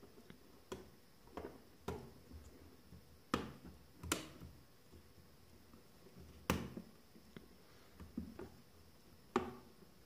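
Hard drive with rubber feet being pushed and worked into a WD My Book Essential's black plastic enclosure, giving irregular plastic clicks and knocks. The loudest come about three, four, six and a half and nine and a half seconds in.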